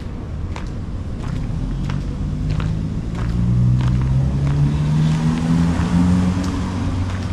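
A motor vehicle passing close by on the street, its engine note rising in pitch as it speeds up and loudest about four to six seconds in. Footsteps at a steady walking pace tick underneath.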